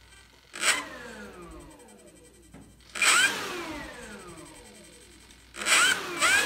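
Brushless electric motor of an E-Flite Air Tractor RC plane blipped three times, each a short, loud spin-up of the propeller followed by a falling whine as it winds down.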